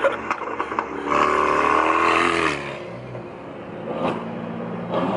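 Tuned turbocharged car accelerating hard with a rising engine note, then lifting off, followed by a couple of sharp exhaust pops.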